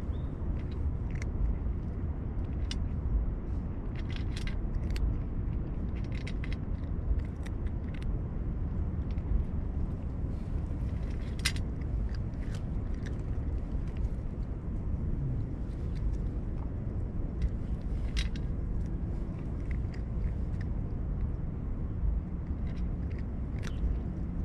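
A ginger cat crunching dry kibble from a stainless steel tray, with irregular sharp crunches over a steady low background rumble.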